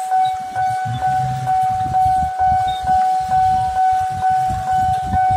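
Railway level-crossing warning bell ringing steadily, about two strikes a second, as the barrier comes down. Motorbike and minivan engines rumble underneath as they cross the tracks.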